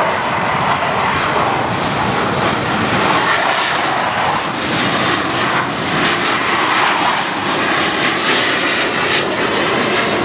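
Jet engine of an F-16 fighter flying past, a loud, steady rushing noise whose tone wavers and shifts as the jet crosses overhead.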